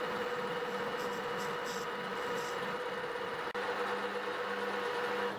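Metal-turning lathe running steadily with its chuck spinning a small brass part, a steady motor and spindle hum. The hum changes slightly in tone about three and a half seconds in.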